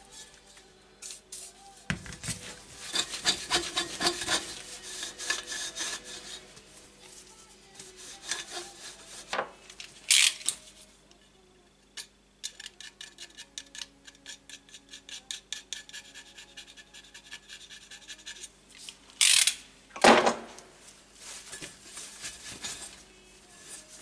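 Hand-scrubbing a motorcycle exhaust pipe with an abrasive pad, fast back-and-forth rubbing strokes, several a second. Short hisses about ten seconds in and again near twenty seconds are bursts from a WD-40 spray can.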